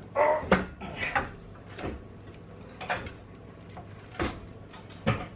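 Irregular knocks and clunks of heavy metal parts, about six over a few seconds, as a manual transmission is worked up against the engine block. A brief grunt-like vocal sound comes at the very start.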